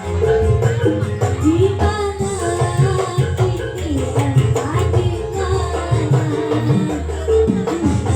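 Live Javanese jaranan music: hand drums play busy patterns under a melody that slides up and down.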